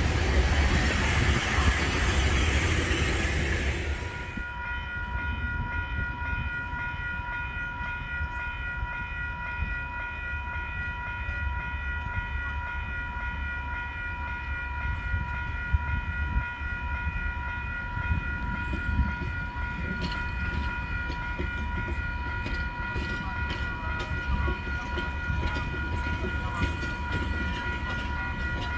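Railway carriages of a heritage train rolling past close by with loud wheel and running noise. After a sudden change about four seconds in, the train is heard further off as it slowly approaches: a low rumble with occasional wheel clicks and a steady high whining tone throughout.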